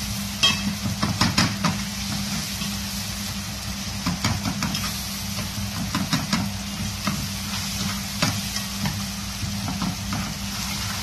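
Onion, tomato and turmeric masala sizzling in oil in a metal pot while a spoon stirs it. The spoon scrapes and clicks against the pot at irregular moments.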